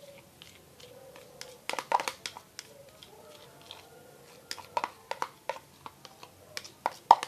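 Handling noises: irregular clicks and knocks of objects being moved and set down, with a cluster of louder knocks about two seconds in and another near the end.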